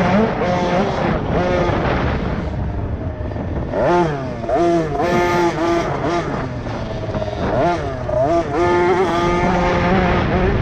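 Small 50cc two-stroke motocross bike engines revving on track, their pitch rising and falling repeatedly with the throttle, with stretches of steady running in between.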